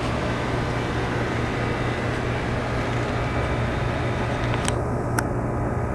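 Steady low machine hum under an even rush of noise, with two sharp clicks half a second apart near the end.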